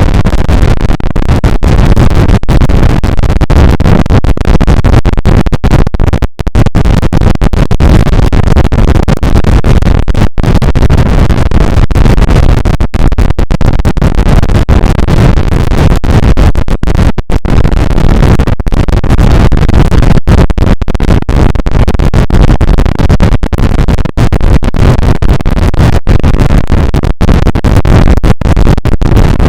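A sneeze sound clip heavily processed with stacked vocoder and distortion effects. It comes out as a harsh, clipped, continuous noise with many brief dropouts.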